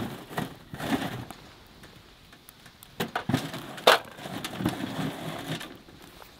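Split firewood logs being pushed by hand into the firebox of a small steel wood stove: irregular knocks and clunks of wood against wood and metal, the sharpest about four seconds in, with scraping as the logs are shoved into place.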